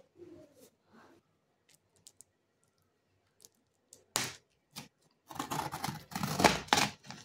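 A kitchen knife slitting the packing tape on a cardboard box. A few faint clicks come first, then from about four seconds in, rapid scraping strokes as the blade cuts along the tape, loudest near the end.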